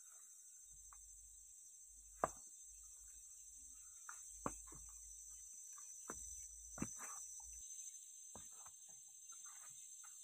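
Faint, steady high-pitched chorus of forest insects, with a handful of sharp clicks and snaps scattered through it; the loudest comes about two seconds in.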